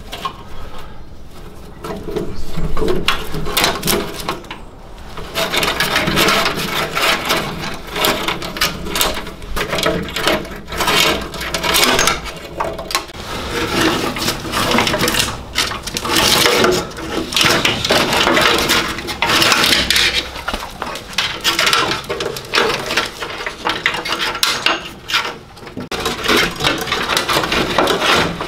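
An old car wiring loom being pulled and worked loose by hand from a Morris Minor's engine bay: wires rustling and scraping, with many small clicks and knocks against the metal bodywork. It picks up about two seconds in.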